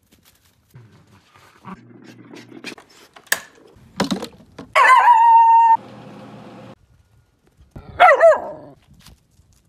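Shetland sheepdog barking: a loud, high bark about halfway through that holds its pitch for most of a second and cuts off suddenly, then a shorter bark near the end.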